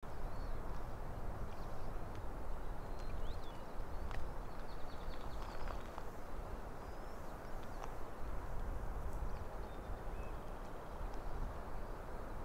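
Steady low outdoor background noise, with a few faint bird chirps and a short trill midway, and scattered light clicks.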